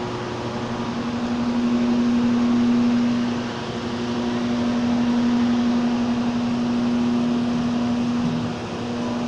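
Steady rush of a waterfall, with a constant low electrical hum underneath.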